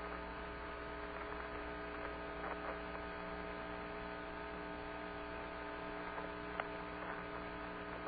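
Steady electrical hum with a faint hiss, the open air-to-ground radio link between transmissions, with a few faint clicks.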